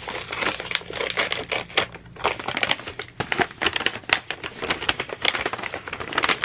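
Paper packaging and a mailing envelope crinkling and rustling as they are unfolded and handled, in a fast, irregular run of crackles.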